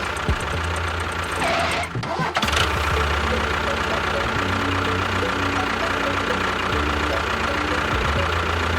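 A small motor running steadily with a low hum, briefly disturbed about two seconds in.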